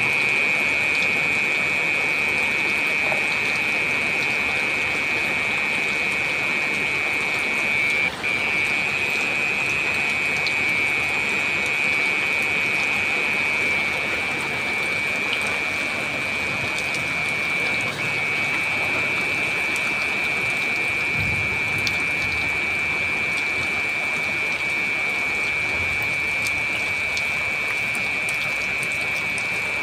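Heavy rain falling steadily, with a steady high-pitched whine over it. The sound dips briefly twice.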